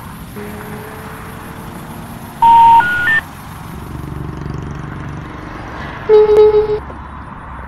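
Three loud electronic telephone beeps stepping up in pitch about two and a half seconds in, the rising three-tone signal a phone network plays when a call cannot go through. A lower, louder tone with a wavering level follows for under a second about six seconds in, over a steady low background noise.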